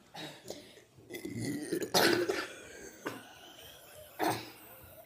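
A person burping: a longer burp about two seconds in and a short one a little before the end.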